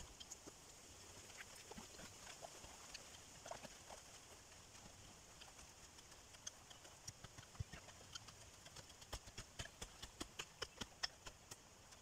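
Near silence with faint, scattered sharp taps and clicks that come more often in the second half.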